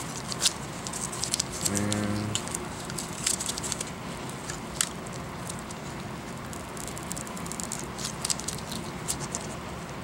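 Scattered light clicks and ticks as the glued logic board of an iPad mini is pried and wiggled loose from its aluminium housing with a metal pry tool and gloved fingers.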